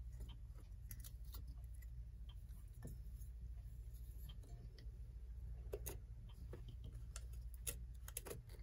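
Faint, irregular light clicks and taps of small metal clock parts and screws being handled while the back of an old clock is worked loose, over a low steady hum.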